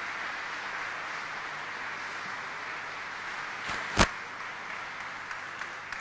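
Audience applauding steadily, with a sharp knock about four seconds in and a fainter one just before it.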